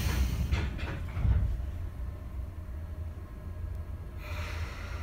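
Interior of a Sotetsu 8000 series train car: a few knocks and a heavier thump about a second in, over a steady low rumble, with a rise of hissing noise about four seconds in.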